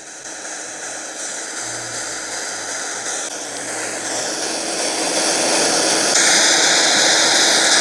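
Propane torch flame hissing steadily as it heats a copper pipe joint for soldering, growing gradually louder; the owner suspects the cylinder is running low on propane.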